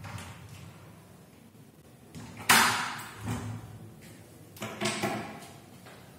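Several sudden bangs, each trailing off, the loudest about two and a half seconds in.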